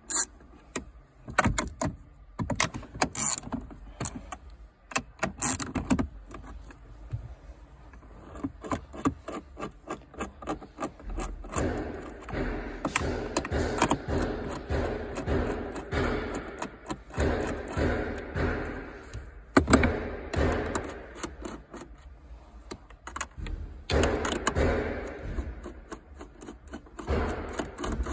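Hand ratchet and socket on 10 mm nuts of a gear selector housing: scattered clicks and knocks of the tool going on and off the nuts, then, from about twelve seconds in, long runs of fast ratchet clicking as the nuts are wound off.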